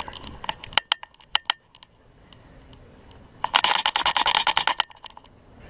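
Metal clinking and rattling from the husky's harness and collar hardware jostling as the dog runs: scattered sharp clinks at first, then a dense burst of rapid clinks about three and a half seconds in.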